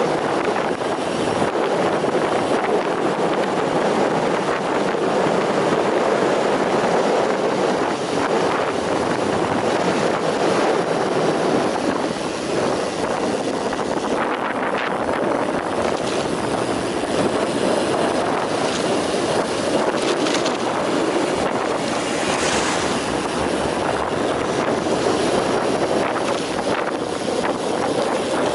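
Steady rush of wind over the microphone of a road bicycle coasting fast down a mountain road, mixed with the hum of the tyres on asphalt.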